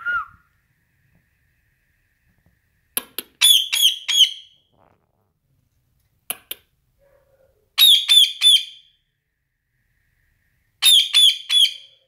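Rose-ringed parakeet giving shrill, whistle-like calls in three quick runs of three or four notes each, with a single short note in between.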